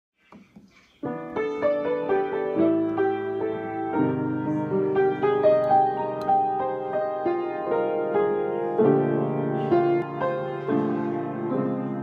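Background piano music, a melody of held notes, starting about a second in.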